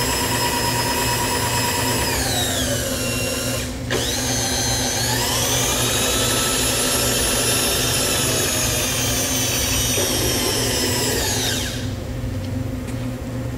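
Bridgeport Series I CNC milling machine running with a high motor whine. The whine winds down and breaks off briefly, winds back up and holds steady, then winds down and stops near the end. A steady low machine hum runs underneath throughout.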